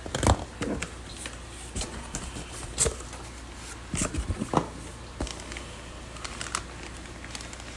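A cardboard shipping box being opened by hand: flaps scraping and rustling, with a few sharp knocks and crinkles from the cardboard and the plastic bags inside.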